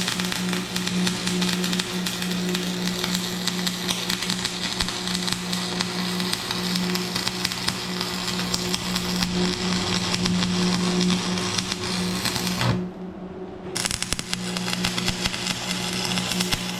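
Stick welding on steel: the arc crackles and sizzles steadily over a strong electrical hum, stops for about a second roughly three-quarters of the way through, then strikes again.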